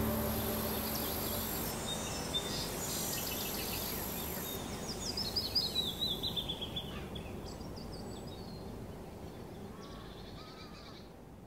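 Birds chirping over a steady background hiss, with a quick run of repeated falling chirps about halfway through. The whole ambience fades out gradually.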